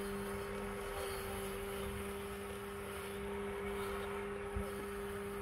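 Ambrogio 4.0 Elite 4WD robot lawnmower running as it drives across the lawn: a steady, fairly quiet electric hum over a low rumble, measured at 58 decibels on a phone app.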